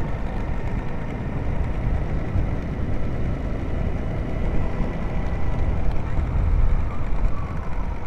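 Motorcycle running steadily at riding speed along a road: a continuous low rumble with road and engine noise.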